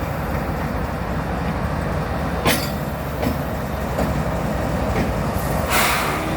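Freight train with GE diesel locomotives moving through a yard: a steady low engine rumble with a few sharp clicks of wheels on the rails in the middle, and a short louder rushing burst near the end.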